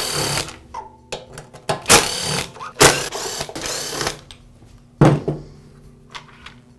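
A screwdriver backing screws out of a chop saw's plastic handle housing: several sharp clicks and knocks of metal on plastic, with rattling in between.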